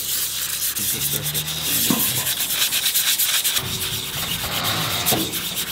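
A red abrasive pad and a cloth scrubbing quickly back and forth over the blades of a bronze feathering propeller, making a continuous rasping scuff. The blades are being prepped for a fresh coat of propeller antifoul.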